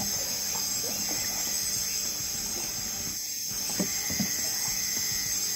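Crickets and other night insects chirring steadily in a high, continuous drone.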